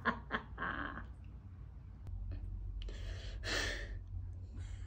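A person's breathing: a few breathy exhalations, the strongest about three to four seconds in, over a low rumble.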